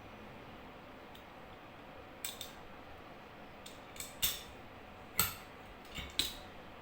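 A fiber optic cleaver being worked: about six sharp small clicks and snaps as its lid and clamp close and the blade cuts the bare fiber, starting about two seconds in, the loudest near the middle.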